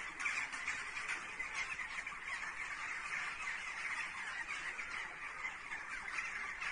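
A large flock of birds calling all at once: a dense, continuous chatter of many short, overlapping cries at a steady level.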